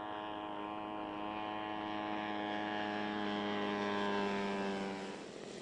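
Propeller engine of a small remotely piloted aircraft droning in flight. The steady tone grows louder and sinks slightly in pitch, then drops away abruptly about five seconds in.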